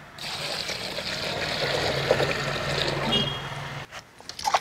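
Water poured into a steel bowl of raw chicken pieces, a steady splashing pour that stops about a second before the end, as the chicken is covered with water for washing.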